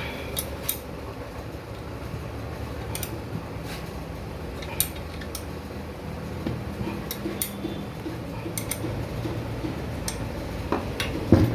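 Light metallic clinks and taps of turbocharger parts and hand tools being handled during assembly, scattered irregularly, with a louder cluster of knocks near the end, over a steady low hum.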